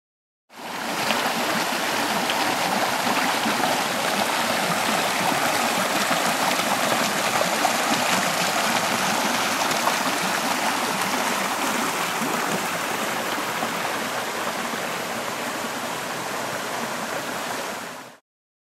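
Shallow woodland brook running over rocks: a steady rush and babble of water that starts abruptly just after the beginning and cuts off shortly before the end.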